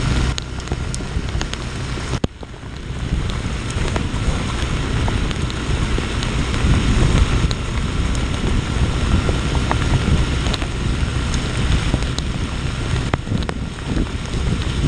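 Wind rushing over the action camera's microphone on a moving motorcycle in heavy rain, mixed with spray from the wet road and the engine underneath, with scattered sharp ticks. The noise drops briefly about two seconds in.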